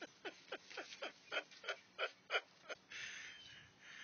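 A man laughing hard in rapid short bursts, about four a second, then a long wheezing breath in near the end.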